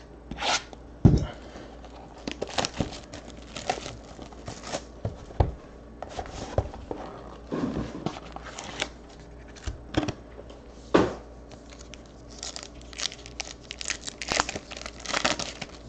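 Foil-wrapped trading card packs torn open and crinkled by hand, along with handling of the cardboard card box: an irregular run of rustles and tears, with a couple of sharp knocks.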